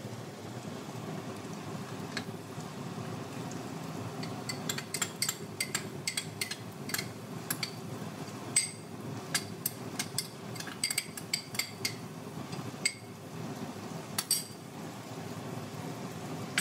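A slotted spatula knocks and scrapes against a frying pan in quick irregular clicks while potatoes and chickpeas are stirred, over a steady low hiss. The clicking starts a few seconds in and stops a couple of seconds before the end.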